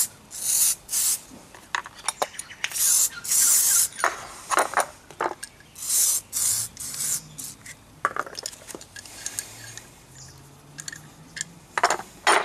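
Short hissing bursts of a WD-40 aerosol can spraying the threaded screws of steel G-clamps, about five in the first six seconds. After that come scattered metal clicks and knocks as the clamps are handled and set down.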